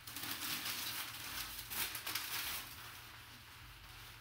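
Crumpled brown packing paper rustling and crinkling as hands dig through a cardboard box, then softer rustling as a black bag is lifted out.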